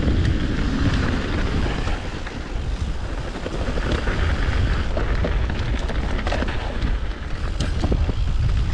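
Mountain bike riding along a dirt trail: steady wind noise on the microphone over tyre roll, with scattered clicks and rattles from the bike over the ground, most of them in the second half.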